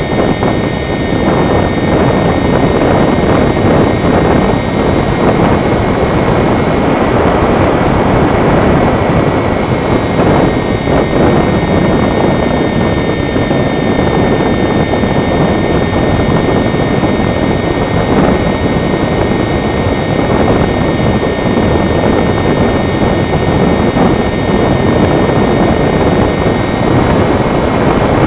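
Electric motor and propeller of an HK Fox foam model glider running steadily under power, heard from a camera on board the model: a steady high whine over wind noise on the microphone.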